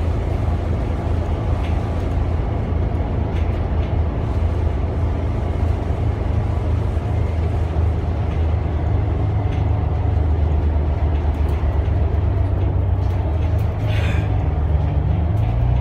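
Volvo B8RLE bus, its Volvo D8K diesel engine and ZF EcoLife automatic gearbox heard from inside the passenger cabin while under way: a steady low drone over road noise. A short, higher rattle or squeak about fourteen seconds in.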